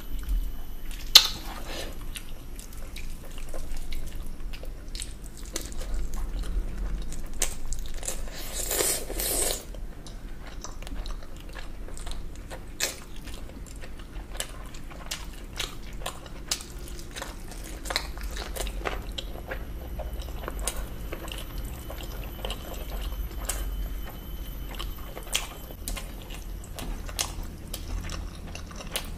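Close-miked eating: chewing and biting into curried chicken and rice eaten by hand, with many small wet clicks and smacks, and a denser crackling burst about nine seconds in.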